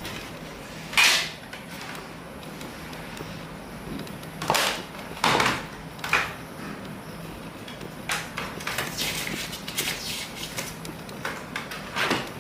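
Cardboard phone box and packaging being handled: a few short sliding, rustling swishes, then a run of small clicks and rustles near the end.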